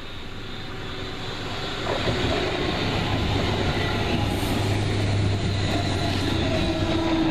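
Red Deutsche Bahn electric multiple unit approaching and passing close by: a rising rumble of wheels on rail with a steady low electric hum, loud from about two seconds in as the cars go past.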